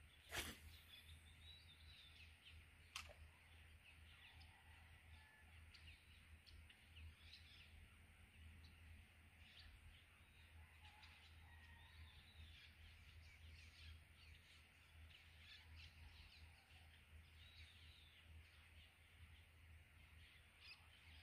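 Faint outdoor birdsong: many small birds chirping and calling on and off, with a sharp click about half a second in and another about three seconds in.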